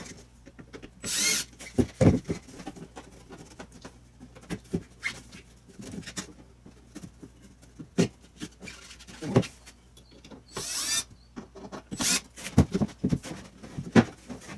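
A power drill runs in two short bursts of about half a second each, one about a second in and another near eleven seconds, during work on a plywood speaker plate fitted to a boat's fiberglass hull. Scattered sharp knocks and clicks are heard between the bursts.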